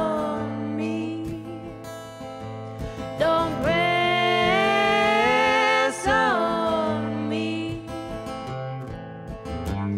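A man and a woman singing together in a folk song, with long held notes, over strummed acoustic guitar. It gets quieter for a stretch near the end.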